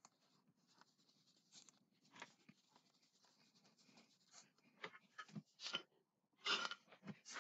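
Faint scratchy rubbing of an ink applier across thin kraft cardstock strips, with a few light paper rustles and taps about five to seven seconds in.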